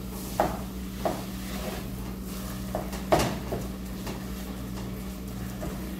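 Wooden spoon stirring mashed potatoes in an aluminium pan, knocking against the pan a handful of times, loudest a little after three seconds in, over a steady low hum.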